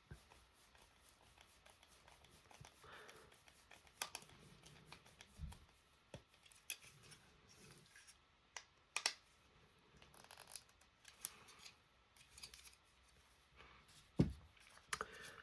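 A screwdriver driving 3x10 mm self-tapping screws into plastic gearbox parts by hand, with faint scattered clicks and scrapes and a couple of soft knocks as parts and tool are handled.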